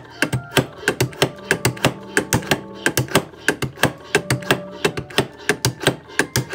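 Hand-operated bassoon reed cane profiling machine, its blade carriage swept back and forth over gouged cane clamped on the barrel, shaving thin layers off: a quick, even run of sharp clicks, about five a second.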